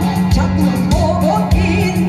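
A singer performing an upbeat song live over a backing track with a steady drum beat.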